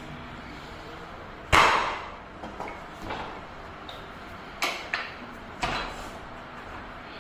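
A series of sharp knocks or thumps at uneven spacing, each with a short ringing tail. The first, about one and a half seconds in, is the loudest, and the rest are lighter.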